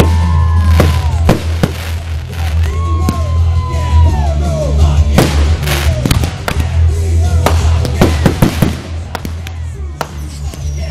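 Fireworks going off in a rapid, irregular series of bangs and crackles, over loud music with a heavy, steady bass.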